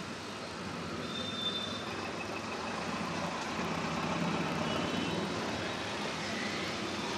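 Busy city road traffic heard from an open-sided auto-rickshaw: a steady din of engines, with motorcycles running close alongside. A faint short high beep comes about a second in.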